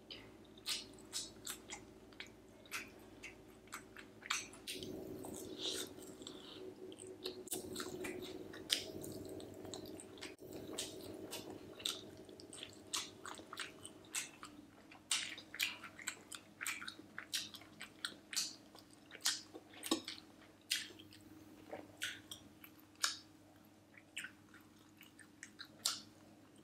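Close-miked chewing and biting of roasted chicken, with short wet mouth clicks and smacks coming one or two a second. A faint steady hum runs underneath.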